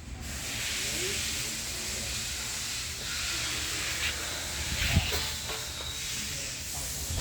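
Steady hiss of air escaping from an air-ride suspension as the truck's airbags are let down.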